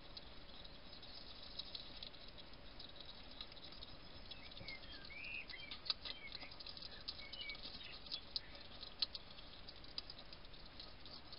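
A hedgehog feeding right beside the microphone: a quick, uneven run of small crunching clicks, with a few sharper clicks in the second half. A few faint high chirps sound around the middle.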